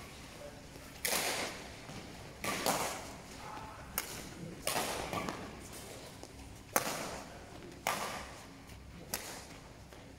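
Badminton rackets striking a shuttlecock back and forth in a rally: about seven sharp hits, roughly one every second or so, each ringing out in a long echo in a large sports hall.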